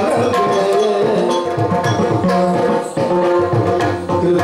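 Yakshagana ensemble music: chende and maddale drums beating fast, frequent strokes under a held melodic line.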